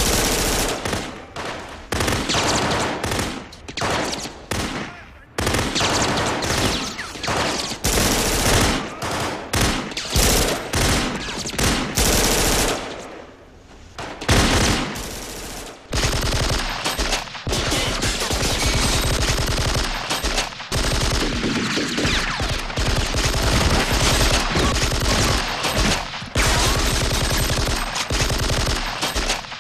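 Film sound effects of a machine-gun shootout. Bursts of automatic gunfire come with short gaps between them, then from about 16 seconds in the firing is near-continuous and rapid.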